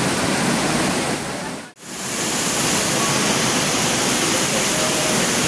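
Eaton Canyon Falls rushing, a steady loud roar of falling water. About a second and a half in, it fades out briefly and comes straight back.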